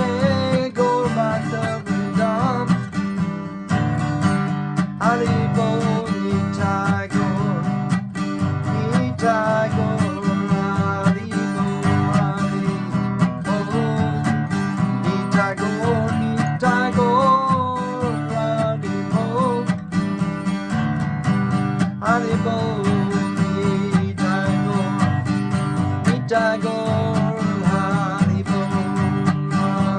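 Acoustic guitar strummed steadily, with a melody line bending above the chords.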